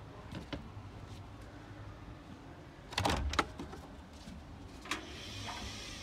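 Front-loading washing machine door being opened: a cluster of clunks from the door latch about halfway through, a single click about two seconds later, then a soft rustling as a gloved hand handles the door and drum.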